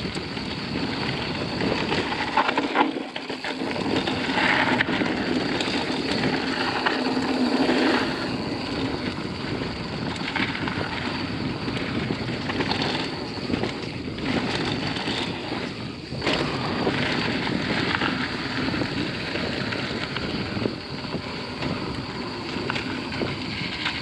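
Wind rushing over the action-camera microphone while a mountain bike rolls down a dry dirt and gravel trail. Tyre noise runs under it, broken by scattered knocks and rattles from the bike.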